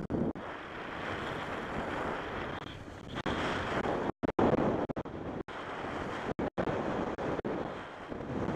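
Wind rushing over the microphone of a skier's camera while skiing fast down a groomed run, mixed with the hiss of skis over packed snow. The noise swells a few seconds in, and the sound cuts out briefly several times around the middle.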